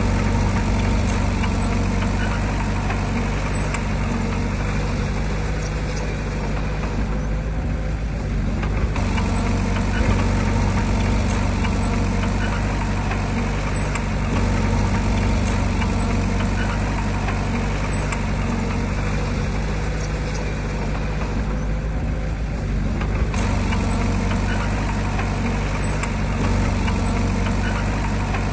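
Heavy diesel earthmoving machine's engine running steadily, its note easing off briefly twice.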